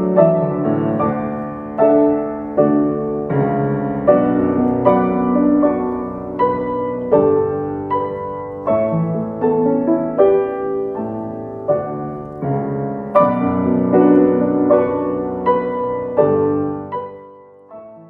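Slow piano music, chords struck about once or twice a second and left to ring, dying away near the end.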